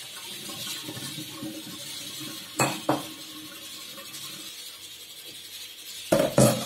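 Glass bowl, stainless steel mesh sieve and steel sink clinking and knocking together as blanched beans are drained, with two sharp knocks about two and a half seconds in and a louder clatter near the end.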